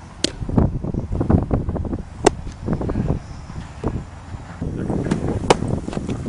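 Wind buffeting the microphone, broken by three sharp cracks, the loudest near the end.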